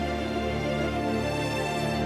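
Background music: slow, sustained chords with a deep bass line.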